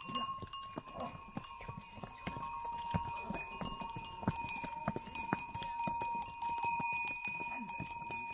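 Pack-mule bells ringing with a steady tinkle as a mule train walks past, with hooves clopping irregularly on stone steps.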